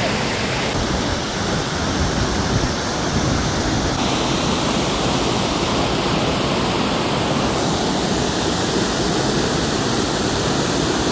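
Waterfall: a loud, steady rush of falling water, its tone shifting abruptly about a second in and again around four seconds as the shots change.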